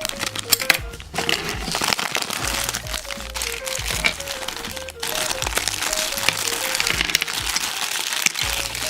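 Packaging being handled: dense crinkling and crackling, over background music with a simple stepping melody.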